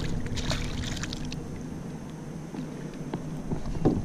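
Hooked speckled trout splashing at the water's surface as it is drawn alongside the boat, a quick run of crackling splashes in the first second or so. A single louder knock comes near the end as the fish is lifted.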